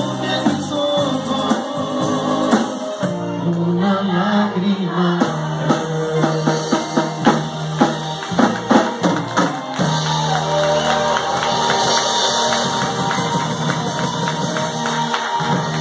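Live band with drum kit, electric guitars, bass and keyboard playing the closing bars of a song: a run of drum hits about halfway through, then a long held final chord near the end.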